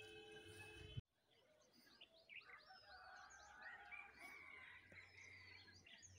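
Small birds chirping and twittering, many short, quick calls overlapping. About a second in the sound cuts off abruptly, and then the chirping starts again.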